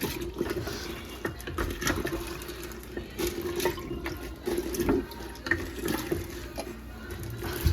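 Sangria splashing and running in its jug, with scattered light clicks and knocks.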